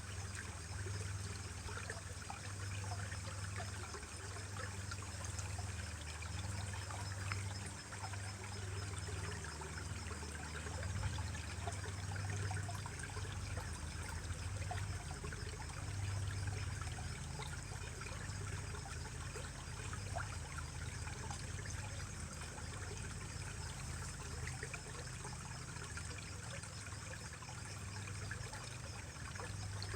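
Mountain stream trickling steadily, a continuous splashing water sound with a low rumble underneath.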